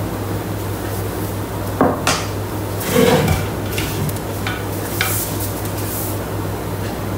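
Spatula scraping and knocking inside a stainless steel Thermomix mixing bowl as bechamel sauce is scraped out, a handful of short clatters with the loudest about three seconds in, over a steady low hum.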